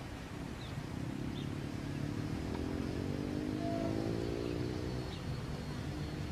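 Diesel locomotive engine throttling up, its note rising steadily in pitch over a few seconds above a low rumble, with a few faint bird chirps.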